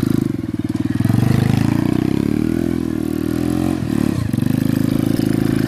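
107cc mini ATV's small single-cylinder four-stroke engine running at high revs, the pitch rising and falling with the throttle. The revs drop sharply and pick back up about four seconds in.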